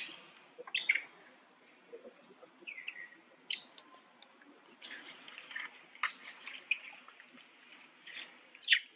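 Forest ambience: scattered short chirps, squeaks and clicks over a faint steady high tone, with one louder sweeping squeak near the end.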